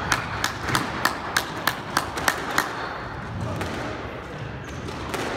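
A run of sharp taps on a hardwood squash court, about three a second, stopping after about two and a half seconds.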